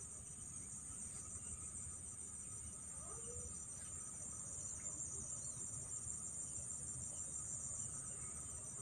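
Insects chirping in a steady, high-pitched chorus over a low rumble, with a few faint chirps here and there.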